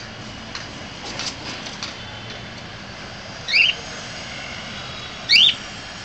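Cockatiel giving two short, loud, rising calls about two seconds apart, over a steady background hum, with a few faint ticks early on.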